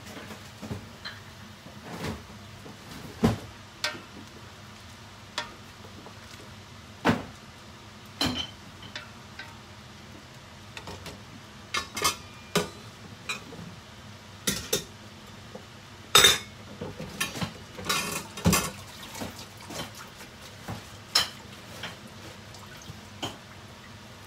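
Kitchen clatter: irregular clinks and knocks of metal utensils against cookware, coming in scattered single strikes, busiest and loudest a little past the middle.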